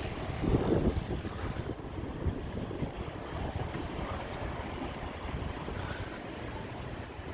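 Strong wind buffeting the microphone with a low rumble, and a steady high-pitched whine that cuts out briefly a few times.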